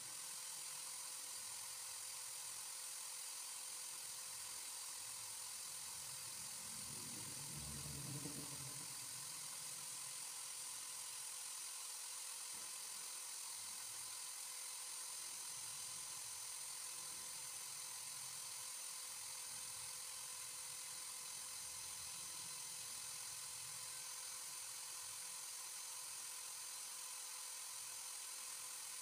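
Electric drill running steadily at speed with an even whine, spinning a rod of sandal foam that is being sanded into a fishing float.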